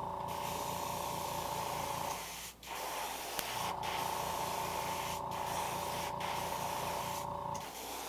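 Iwata HPCS airbrush spraying thinned acrylic paint at about 15 psi: a steady hiss of air and paint, with a short break about two and a half seconds in.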